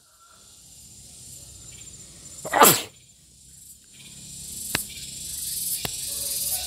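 Garengpung cicada calling, a high drone that swells steadily louder through the second half. A brief loud burst of noise about two and a half seconds in, and a couple of faint clicks later.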